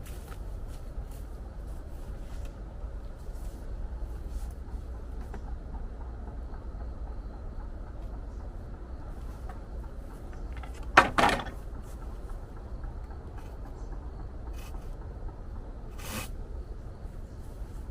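Light handling clicks and knocks over a low steady rumble, with one loud sharp knock about eleven seconds in and a weaker one about five seconds later.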